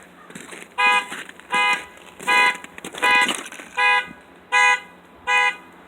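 A car alarm sounding, its horn beeping over and over, about one loud beep every three-quarters of a second, starting about a second in.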